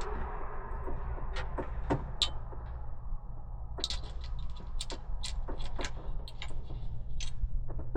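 Sharp light clicks and clinks of small hardware being handled, sparse at first and then a quick run of them through the second half, over a low steady hum.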